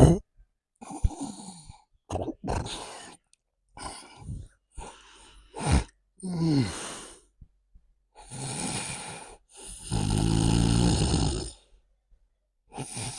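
A man snoring: a string of about ten separate snores of varying length, one with a falling pitch, the two longest in the second half.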